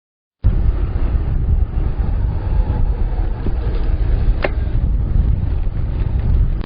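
Wind rumbling on the microphone with road noise from a moving bicycle. It starts abruptly about half a second in and runs on steadily.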